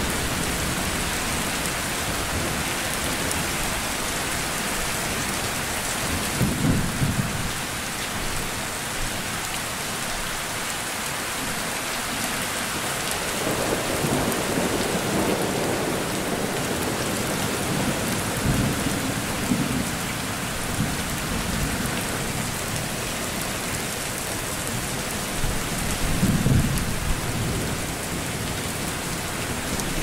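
Steady rain falling, with low rumbles of thunder rolling in four times: about seven seconds in, around fifteen seconds, around nineteen seconds, and loudest near twenty-six seconds.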